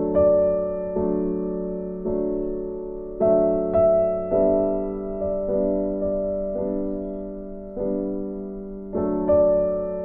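Gentle background piano music: sustained chords and notes struck about once a second, each fading away before the next.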